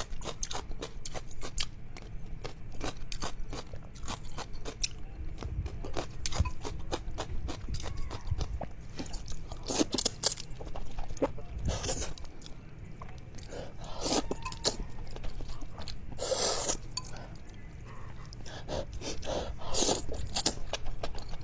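Close-up eating sounds of a person chewing and crunching seafood: a dense run of wet clicks and crunches, with a few louder crackling bites now and then.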